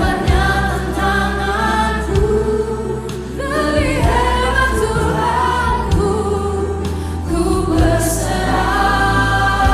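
Gospel worship song sung by a choir with band accompaniment and a steady bass line.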